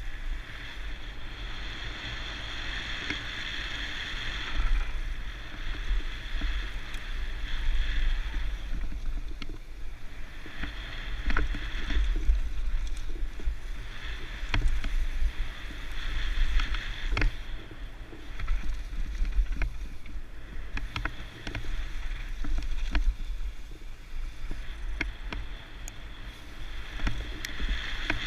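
Mountain bike riding down a bike-park trail: a steady rumble with wind on the camera microphone, a high buzz that comes and goes every few seconds, and frequent sharp clicks and knocks from the bike over rough ground.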